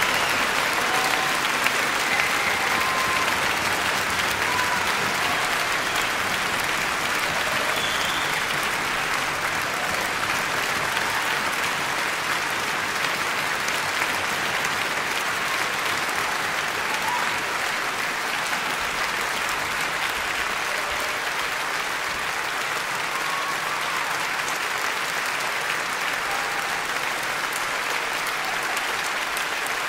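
A large concert-hall audience applauding without a break, the clapping easing slightly over the half-minute.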